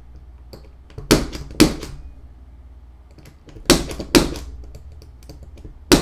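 110 punch-down tool snapping as it seats wires into a keystone jack's insulation-displacement slots and cuts off the excess. Five sharp snaps in pairs about half a second apart.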